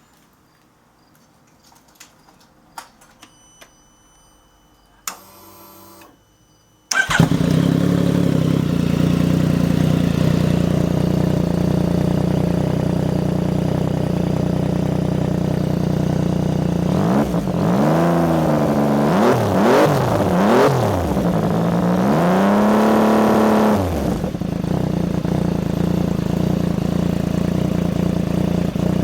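Yamaha FJ-09's three-cylinder engine through an IXIL L3XB exhaust with the baffles removed. A brief starter crank, then it fires about seven seconds in and settles into a loud, steady idle. In the middle come four throttle blips, the last held longest, before it drops back to idle.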